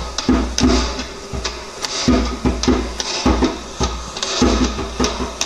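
Hand drum played with bare hands in a steady groove, deep bass strokes mixed with sharper slaps, about three strokes a second.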